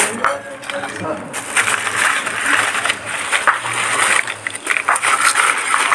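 Many people talking at once, indistinct, with spoons and ceramic plates clinking now and then.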